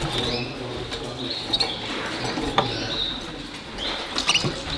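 Many caged canaries chirping, short high calls scattered through, with a few sharp clicks.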